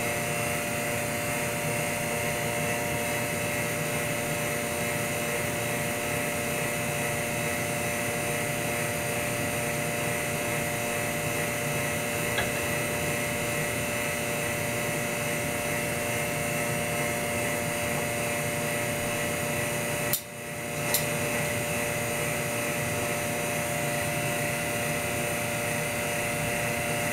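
Steady hum and whine of a small electric motor, with a couple of faint clicks and a brief dip about twenty seconds in.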